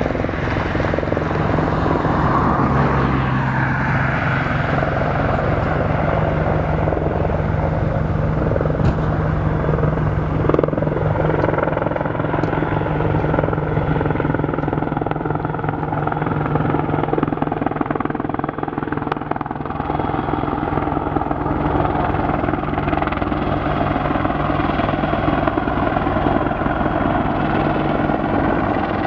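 Apache attack helicopter flying low and close, its rotor beat and twin-turbine engine whine loud and steady.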